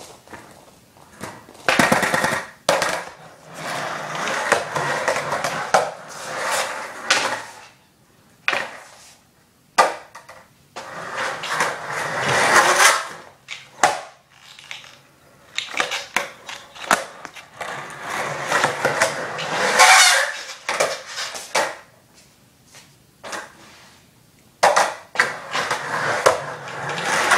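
Skateboard wheels rolling across a smooth concrete floor in four runs of several seconds each, with a few sharp knocks of the board in between.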